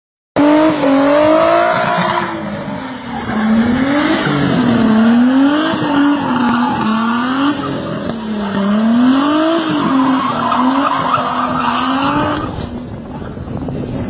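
BMW E30 drift car's engine revving up and down over and over as it slides, with tyre squeal. The engine note falls away near the end as the car moves off.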